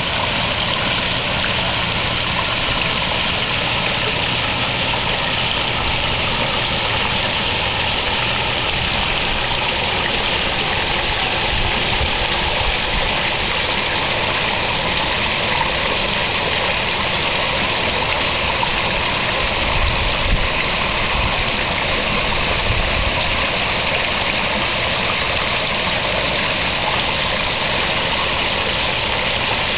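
Steady rushing and splashing of water falling into a garden pond.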